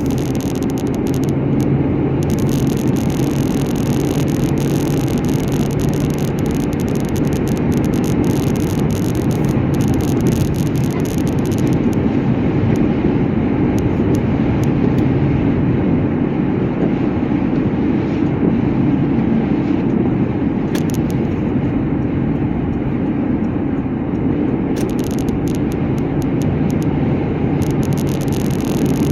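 A vehicle driving at a steady pace: continuous engine and road noise with a steady low hum underneath.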